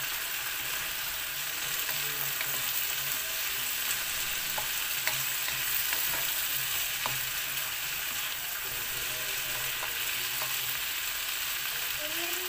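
Vegetables and ground pork stir-frying in a wok: a steady sizzle, with a wooden spatula scraping and tapping against the pan now and then as the food is turned.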